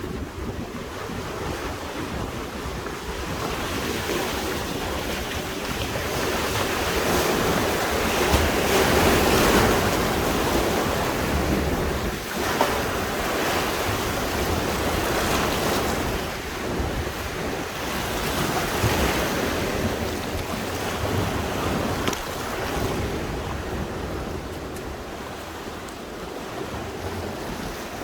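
Sea waves washing against the shore, swelling loudest about a third of the way in, with wind buffeting the microphone.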